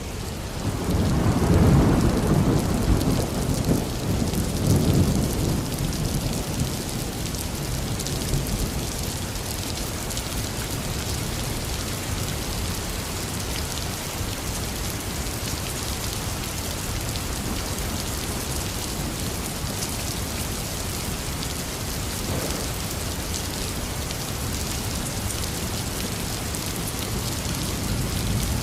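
Heavy rain falling steadily, with a roll of thunder rumbling low and loud in the first few seconds before fading into the rain.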